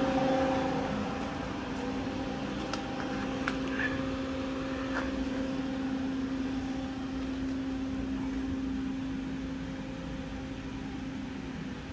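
Hwacheon Hi-Tech 550B CNC lathe running under power: a steady machine hum with a fairly low tone, with a few faint clicks a few seconds in.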